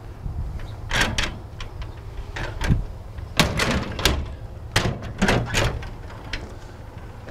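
Steel engine-hood access doors and their latches on an EMD SW9 switcher locomotive being unlatched and opened: a string of sharp metal clicks and knocks, over a steady low rumble.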